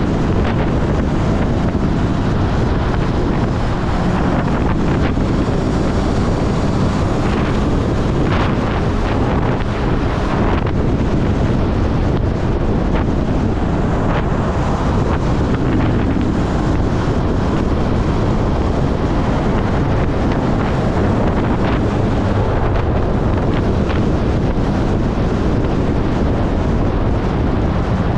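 Steady, heavy wind rush on a GoPro's microphone while riding a Honda CB400SF motorcycle at speed, with the bike's running noise buried underneath.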